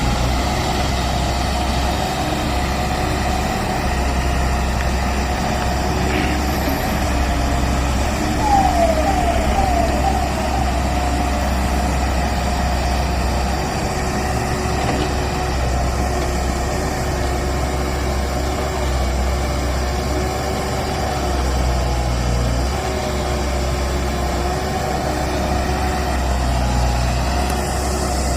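Diesel engine of a JCB backhoe loader running steadily while it works. About nine seconds in there is a quick run of four short falling squeals.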